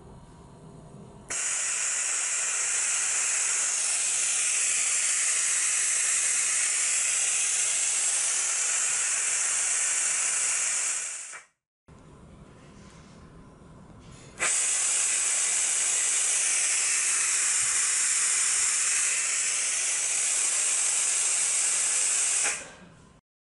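Air hissing through the vacuum supply of a compact sponge vacuum gripper pad as the vacuum is switched on to hold a workpiece. Two steady hisses, each starting abruptly and cutting off after about nine seconds, the first from about a second in to about halfway, the second from a few seconds later to just before the end.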